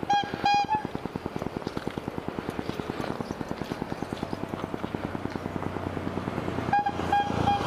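Honda Vario 150 single-cylinder scooter engine idling through an F2Racing CL.LONG full-system stainless exhaust with no dB killer, a steady, fast, even putter with a soft, mellow note. Short, high, repeated beeps sound just after the start and again near the end.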